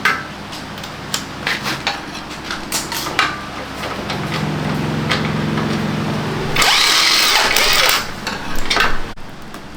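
Metal clicks of tool work, a small motor whirring steadily for a couple of seconds, then a loud hissing burst lasting about a second and a half, followed by a few more clicks.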